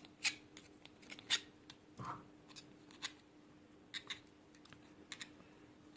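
Light, scattered clicks and scratches of small handwork on a Zippo lighter's insert as the wick is tucked into the rayon packing, over a faint steady hum.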